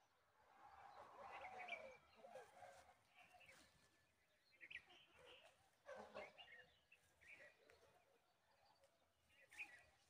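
Faint chirps and squeaky calls from budgerigars in a nest box, adult and chicks, with a brief flutter of wings about six seconds in.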